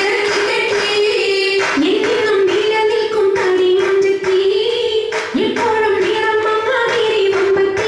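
Women's voices singing an Oppana song, a Mappila song with a steady held melody, to rhythmic handclaps kept in time by the dancers.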